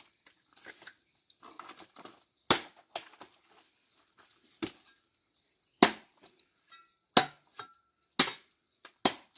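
Firewood being handled: a series of sharp wooden knocks, a few faint ones at first, then louder ones about once a second from a third of the way in, some leaving a brief ringing tone.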